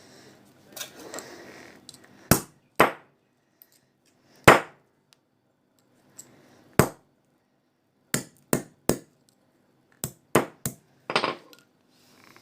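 A hand tool striking an old mobile phone's casing in about a dozen sharp knocks, spaced irregularly, with quick runs of three blows about eight and ten seconds in, as the phone is beaten to break it open.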